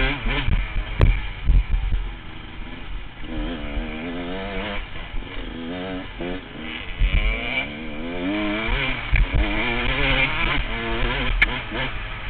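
Honda CR125 two-stroke dirt bike engine ridden hard, its pitch rising and falling again and again as the throttle is worked, with a few sharp knocks along the way.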